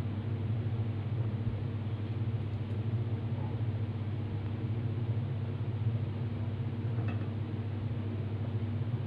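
A steady low mechanical hum, like a fan or motor running, with a faint knock about seven seconds in.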